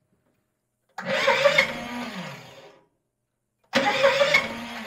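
Electric starter of a 212 cc single-cylinder Predator engine cranking it from a 12-volt Milwaukee M12 drill battery, in two bursts of about two seconds each. Each burst starts suddenly and slows to a stop without the engine catching.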